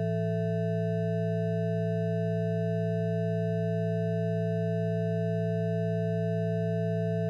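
Steady electronic drone of several pure tones held at fixed pitches, a low hum with higher tones above it. It is the audio output of the Unilateral Phase Detractor, Pure Data oscillators on a Raspberry Pi, whose stereo signal draws a star-like figure on an oscilloscope.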